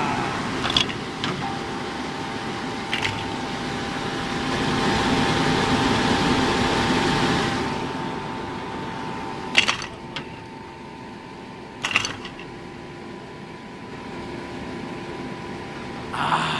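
The DC electric drive of a 1960s Doppelmayr platter lift running just after a restart. A steady whine sets in about a second and a half in over a mechanical rumble that swells in the middle and then eases, with several sharp clunks from the lift machinery.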